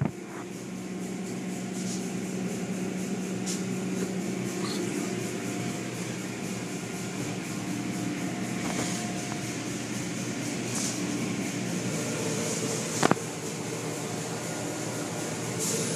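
Automatic car wash machinery running: the overhead cloth mitter curtain swinging back and forth over a soaped car, with steady motor hum and hissing water spray. A single sharp knock about thirteen seconds in.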